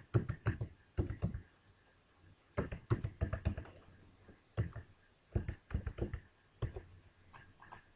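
Computer keyboard typing in quick bursts of keystrokes, with pauses of about a second between bursts.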